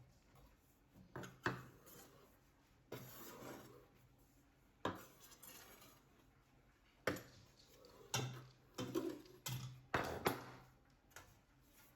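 Kitchen utensils and dishes being handled: an irregular series of knocks, clinks and short scrapes, coming more often in the second half.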